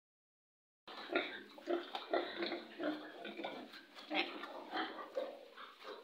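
Several pigs grunting close to the microphone, a busy, overlapping run of short grunts that starts about a second in.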